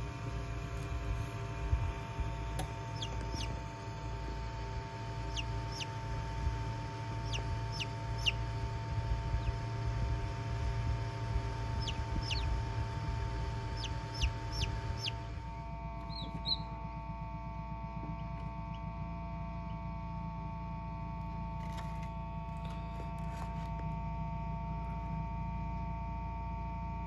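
Newly hatched chicks peeping inside an incubator: short, high, falling peeps in small clusters over the incubator's steady hum. The peeps stop a little past halfway, leaving only the hum.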